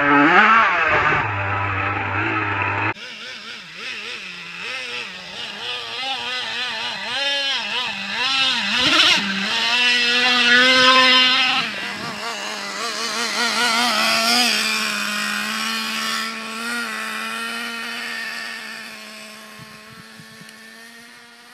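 Traxxas Revo 3.3's small two-stroke nitro engine revving up and down as the truck splashes through a shallow stream. About halfway through, the engine settles to a steady high drone that slowly fades.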